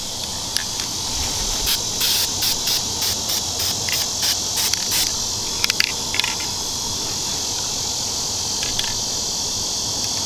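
Aerosol can of camouflage spray paint hissing in about ten short quick bursts, roughly three a second, as paint is sprayed through a cardboard stencil, followed by a few light clicks. A steady chorus of insects runs underneath.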